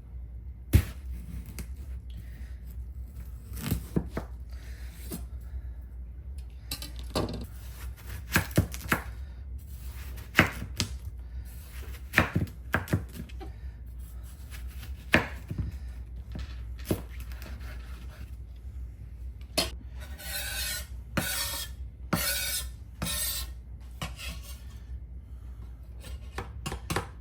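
Knife chopping hard on a wooden cutting board: irregular sharp knocks, with a few seconds of denser, hissier strokes about three-quarters of the way through. A steady low hum runs underneath.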